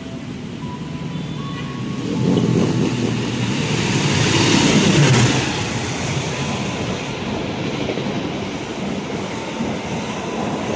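A CC 206 diesel-electric locomotive hauling an express passenger train passes through the station at speed, close by. It grows louder as it comes in, and its engine sound drops in pitch as it goes past about four to five seconds in. The coaches follow with a steady rolling rumble.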